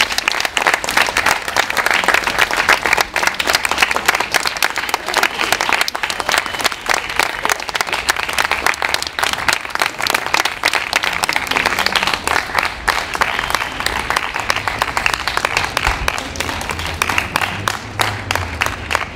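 Audience applauding, a dense sustained clapping that thins out into fewer, separate claps near the end.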